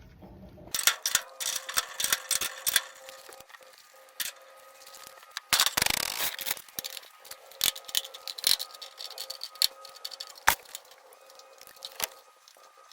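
Scattered light metallic clicks and knocks from gutter hangers being handled and fitted into a 6-inch gutter, with a short scraping burst about six seconds in.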